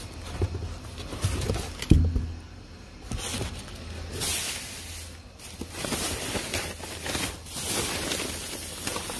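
Plastic trash bags rustling and crinkling as they are handled and shifted about, with a single thud about two seconds in.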